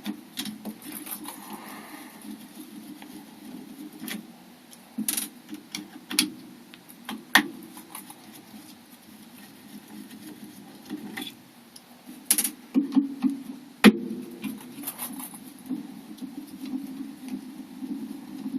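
Small sharp metal clicks and scraping from hand tools and parts of a 7-lever Chubb 3G117 mortice lock being worked on, with a busier run of clicks about two-thirds of the way through.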